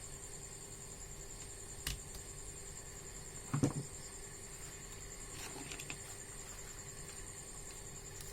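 Quiet handling sounds of bench work: a sharp click about two seconds in and a short knock a second and a half later, with a few faint rustles after, over a steady faint high whine and low hum.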